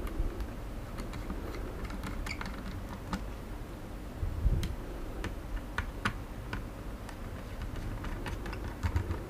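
Small scattered clicks and taps of a screwdriver working a small screw out of a Xiaomi Mi Drone 4K remote controller, with the opened plastic case being handled. A soft thump about halfway through, over a steady low hum.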